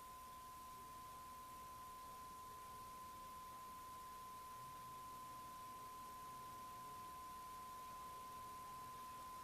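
A faint, single pure tone held perfectly steady at one pitch with no break, like a 1,000-cycle line-up test tone, over a low hiss.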